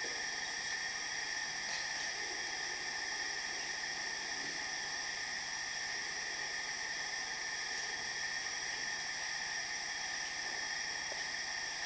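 Steady hiss with several faint high steady tones, unchanging throughout.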